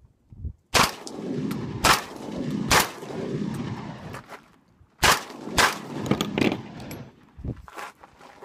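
Catamount Fury II 12-gauge semi-automatic shotgun firing buckshot. A string of three shots about a second apart, then after a pause a second quick string, each report trailing off in echo. The gun is cycling round after round on its higher gas setting.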